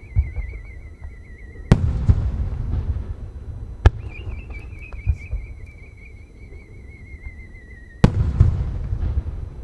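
Aerial firework shells climbing with a warbling whistle that slowly drops in pitch, each cut off by a loud burst that rolls on as echo: two whistle-and-burst shells, with a single sharp crack between them.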